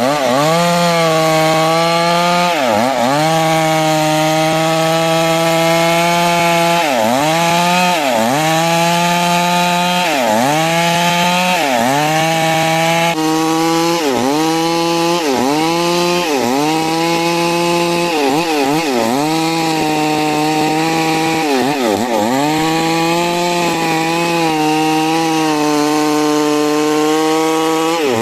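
Stihl MS 382 two-stroke chainsaw running at high revs while cutting lengthwise through a large trembesi log. Its pitch drops sharply and climbs back every second or two as the chain bogs in the wood and frees up again.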